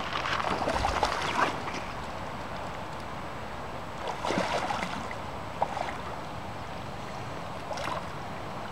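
A hooked steelhead splashing and thrashing at the surface in shallow water, in bursts about a second in and again at around four seconds, over a steady hiss of moving water.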